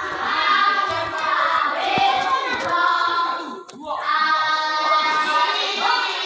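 A large group of children chanting together, many voices at once, with a brief break a little past halfway.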